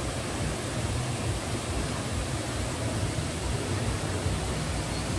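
Steady rushing noise of a waterfall, with a heavy low rumble.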